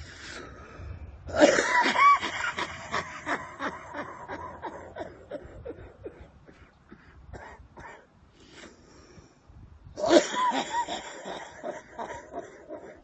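A man's hard, wheezing coughing fit in two bouts: the first starts about a second and a half in and breaks into a run of smaller coughs that die away; the second starts about ten seconds in.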